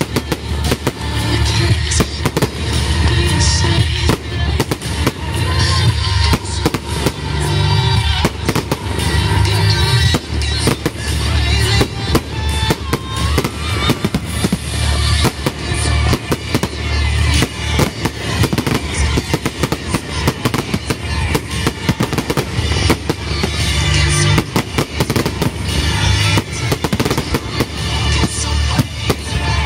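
Aerial fireworks barrage: a continuous rapid run of bangs and crackles from many shells bursting close together, with music playing underneath.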